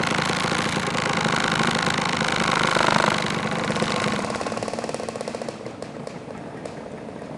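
Several two-stroke scooter engines idling together, loudest about three seconds in, then settling to a quieter, rapid putter.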